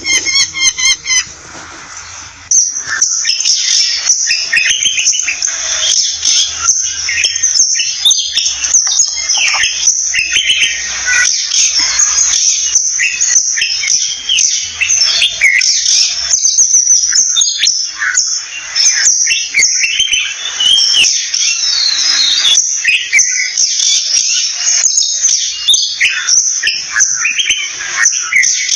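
Oriental magpie calls: a dense, unbroken run of high, varied chirps and short whistled glides, building up about two and a half seconds in.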